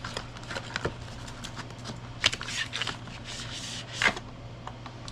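Packaging and a small charger being handled: scattered clicks and short scrapes and rustles, with two sharper knocks about two and four seconds in, over a steady low hum.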